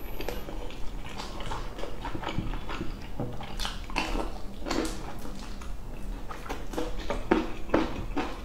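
Close-up mouth sounds of eating noodles wrapped in a thin flatbread: chewing with irregular wet smacks and clicks, several a second.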